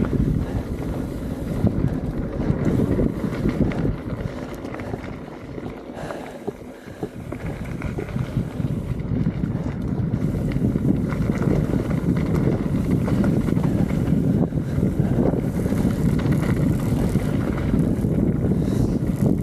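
Mountain bike rolling down a dirt and gravel trail: wind rushing over a helmet-mounted microphone, with tyre rumble and the bike's rattle. The noise eases briefly about six seconds in, then picks back up.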